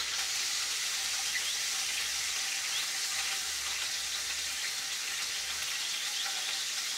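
Bitter gourd (karela) pieces sautéing in hot oil in a non-stick frying pan: a steady sizzling hiss with faint scattered crackles.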